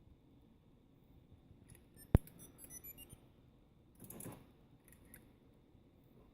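A single sharp click about two seconds in, followed by a quick run of faint ticks, then a short rustling burst about four seconds in and two small clicks; no engine cranking or running is heard.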